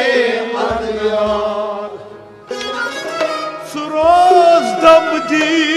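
Kashmiri folk ensemble playing: harmonium and bowed sarangi with plucked rabab over a clay-pot drum, with a few low drum strokes and a wavering melody line near the end.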